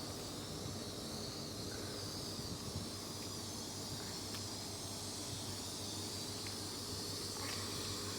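HST class 43 diesel power car idling at a standstill: a steady low hum with a constant hiss above it.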